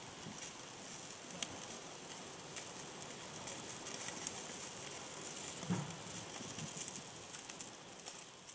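Mititei sizzling on a charcoal grill: a steady hiss with scattered sharp crackles and pops. A single low thump comes a little past halfway, and the sound fades away near the end.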